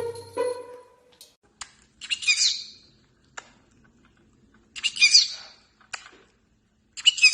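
A parrot giving three short, high calls about two and a half seconds apart, with a few sharp clicks between them.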